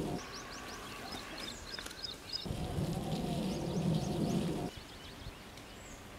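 Small birds chirping and calling, short rising chirps with a quick run of notes about a second in. A louder low sound lasts about two seconds in the middle.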